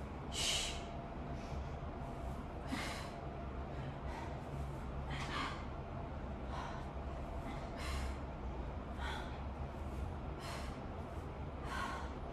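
Heavy breathing of someone catching their breath after intense exercise. Deep audible breaths come about every one to two seconds over a faint steady background hum.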